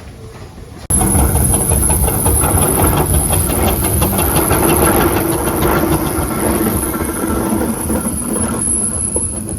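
Steam engine running, with a hiss and a steady high-pitched squeal over a low rumble; it starts abruptly about a second in.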